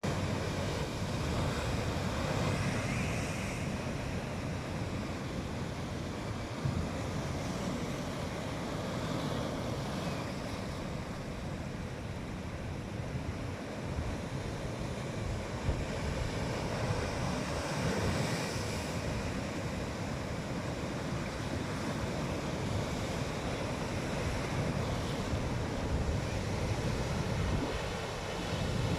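Sea surf washing onto the shore, swelling every several seconds, with wind rumbling on the microphone.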